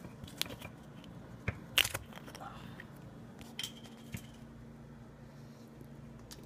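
Plastic water bottle being handled: a few sharp clicks and crinkles of thin plastic, the loudest about two seconds in, over a faint steady hum.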